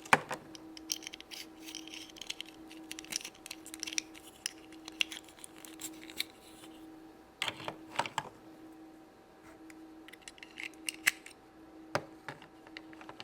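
Small plastic clicks and light handling noise as Magiclip dolls' dresses are unclipped and snapped onto other dolls, with a few sharper clicks later on, over a faint steady hum.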